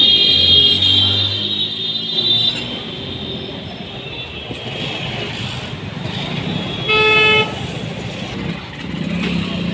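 Street traffic noise with a vehicle horn honking once, briefly, about seven seconds in.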